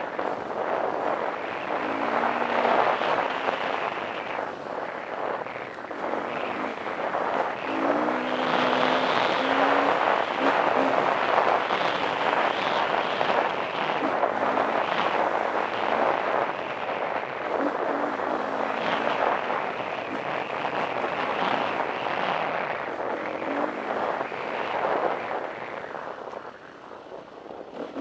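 KTM 350 EXC single-cylinder four-stroke dirt-bike engine running under changing throttle. It revs up in short rises in pitch several times, over a steady rush of wind noise on the microphone.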